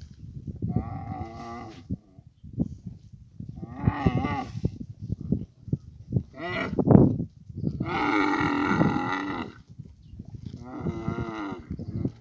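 Dromedary camels calling while mating: a series of about five drawn-out, pitched, moaning calls, the longest and loudest lasting nearly two seconds about eight seconds in, with rough low rumbling between them.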